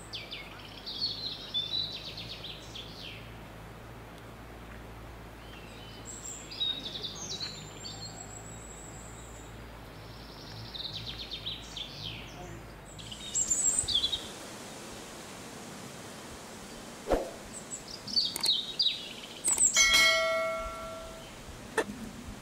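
Small birds chirping and whistling in the trees, in short scattered calls, over a low steady hum during the first half. About twenty seconds in comes a short bell-like chime with clicks: the sound effect of a subscribe-button animation.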